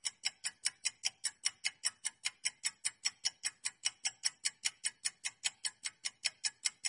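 Countdown-timer clock ticking sound effect: fast, even ticks, about four a second, marking the time to answer.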